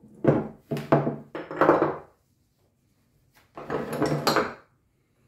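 Metal pump parts and pipe fittings set down on a wooden tabletop, several knocks and clunks in quick succession. After a short pause, heavy pipe wrenches are shifted and clunk against the table and each other.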